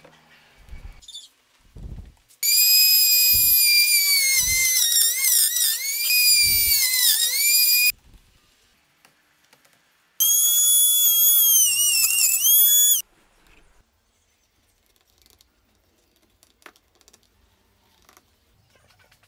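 Handheld power drill running in two bursts, about five seconds and then about three. Its high whine dips in pitch again and again as the bit bites into the wood through the jig's guide slot. A few dull knocks come before and during the first burst as the work is handled.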